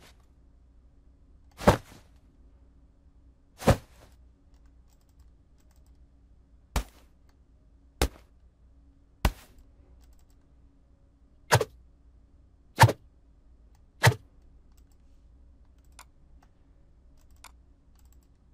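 Combat sound effects from a sound-effects pack played one after another: about eight short, sharp hits, each with a brief tail, a second or two apart, with two faint clicks near the end.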